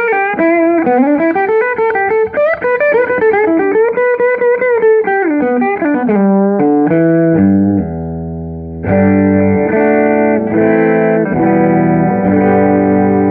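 Telecaster electric guitar through a tweed-style valve amp. It plays a quick single-note line with bends for about six seconds, then a falling run into a held note that fades, then ringing chords from about nine seconds in.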